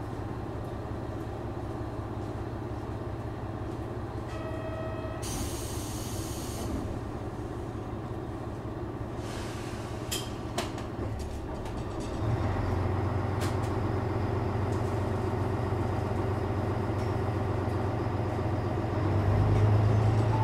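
JR Shikoku 1000 series diesel railcar heard from on board, its engine running low and steady. A short buzzer tone sounds a little after four seconds in, followed by a hiss of air from the air brakes and a few clicks. About twelve seconds in the engine note steps up under throttle, and it rises again near the end.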